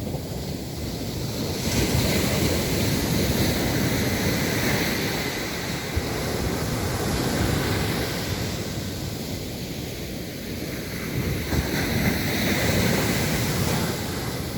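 Ocean surf breaking on a beach: a continuous wash of waves that swells about two seconds in and again near the end, with wind buffeting the microphone.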